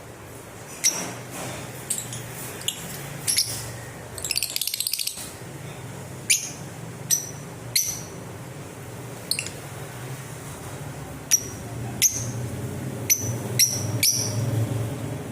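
Lovebirds chirping: about a dozen short, sharp, high chirps spread out, with a brief rapid chattering run about four seconds in, over a steady low hum.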